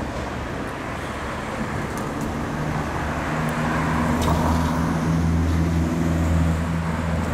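Road traffic: cars passing close by on a city street, with a low engine hum that grows louder from about three seconds in.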